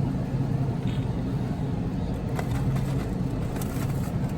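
Steady engine and road noise inside a moving car, a low even rumble.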